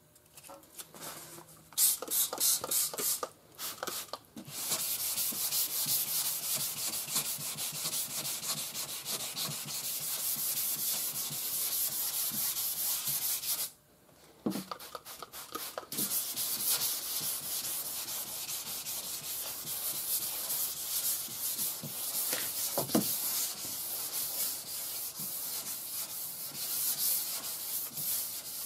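Fine wet/dry sandpaper rubbed by hand over primer on a car body panel in back-and-forth strokes: a steady rasping scrape as the guide coat is sanded off. It stops briefly about halfway, then resumes.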